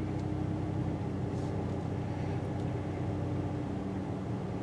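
Small pickup truck driving slowly, its engine running with a steady low hum heard from inside the cab.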